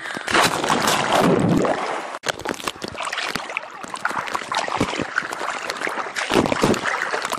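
Swimming-pool water splashing and sloshing right at the microphone: a big splash in the first two seconds from a cannonball jump, then churning water as someone swims at the surface.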